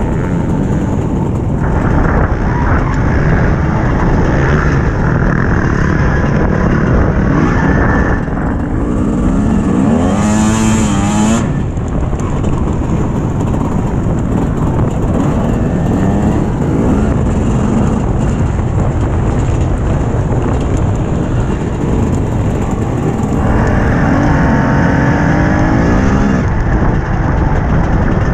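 TM 250 dirt bike engine revving on and off the throttle, under heavy wind rumble on a helmet-mounted microphone. The engine note climbs clearly about ten seconds in and again near the end.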